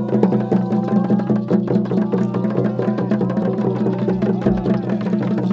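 Percussion music: rapid clicking beats over a steady low hum, with voices singing above.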